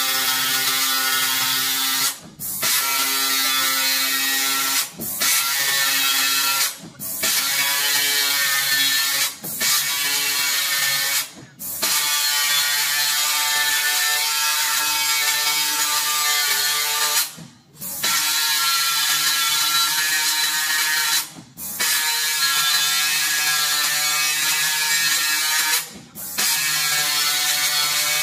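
The marking pen on a CNC plasma cutting and marking machine hammering on the steel plate, a dense rapid buzzing rattle. It runs in stretches of a few seconds, broken by about eight short pauses, and its pitch shifts from one stretch to the next.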